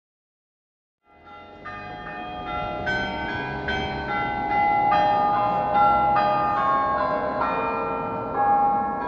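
Silent for about the first second, then a carillon's bronze bells play a tune, each note struck from the lever console, with the strikes coming about every half second and ringing on over one another.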